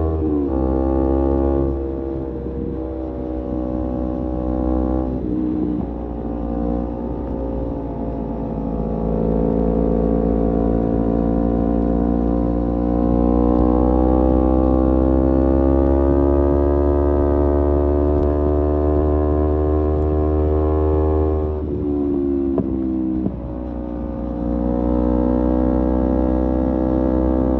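Kawasaki Z250 motorcycle engine running through an aftermarket SeaPro muffler while riding, its revs rising and falling. The pitch drops sharply just after the start and again about 22 seconds in, as at gear changes or throttle-off.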